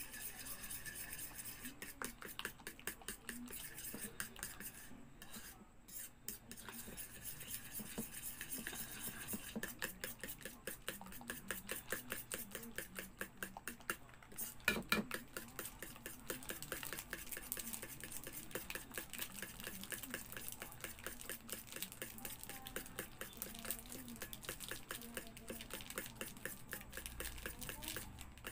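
Spoon stirring and scraping a flour batter in a plastic mixing bowl: quick, repeated scrapes and taps against the bowl, with a sharper knock about halfway through.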